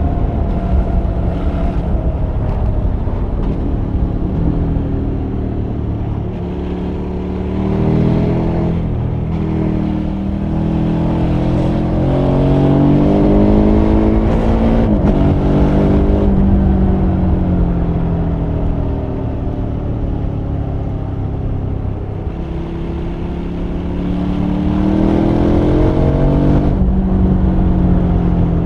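KTM 1290 Super Adventure R's 1301 cc LC8 V-twin under way at speed. The engine note falls as the throttle is eased, then rises under acceleration from about eight seconds in, and again past twenty-three seconds, over a steady rush of wind.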